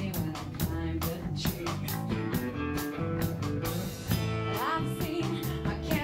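A live rock band playing: drums keeping a steady beat under bass and guitars, with a Stratocaster-style electric guitar being picked. A line rises in pitch about four and a half seconds in.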